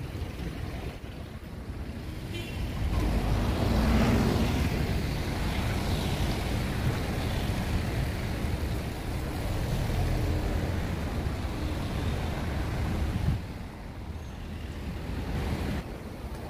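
Outdoor rumble of street traffic and wind on the microphone. It swells about three seconds in, holds steady, and drops off suddenly about three seconds before the end.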